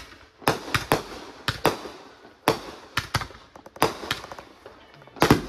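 Consumer fireworks going off in a rapid, irregular string of sharp bangs, about two to three a second, each trailing off briefly.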